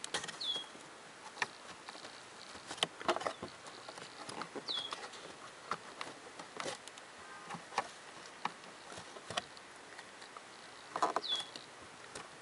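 Paper-pleated cabin air filter being worked into its plastic housing behind the glove box: irregular clicks, taps and soft scraping as the frame rubs and catches, with three short high squeaks, about half a second, five seconds and eleven seconds in.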